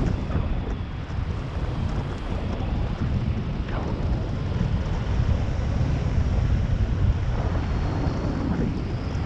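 Wind rushing and buffeting over the microphone of a camera on a hang glider in flight: a loud, steady rush of airflow from the glider's airspeed, heaviest in the low end.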